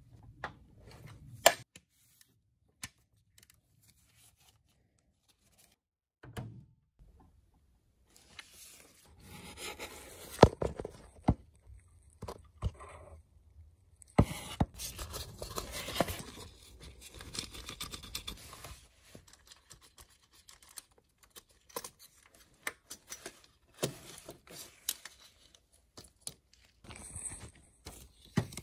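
Irregular clicks, knocks and scraping, like tools and parts being handled, with a few seconds of near quiet about two seconds in.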